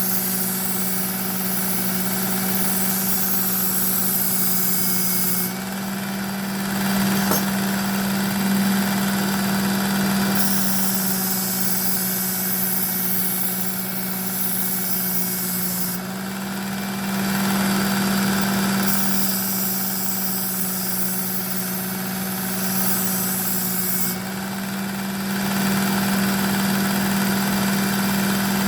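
Ken Onion edition electric belt sharpener running steadily, with a knife blade drawn across the moving abrasive belt in passes of several seconds each that bring a grinding hiss in and out. There is a single light click about seven seconds in.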